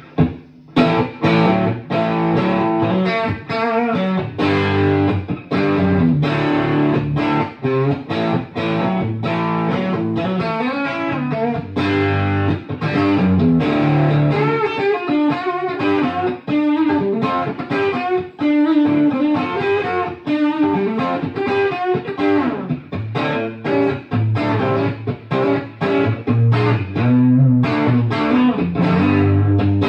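A 1967 Fender Telecaster electric guitar is played through a 1960s valve amp set for crunch, with a clean boost pedal pushing it into overdrive. The playing is steady, with chords and single-note lines picked one after another.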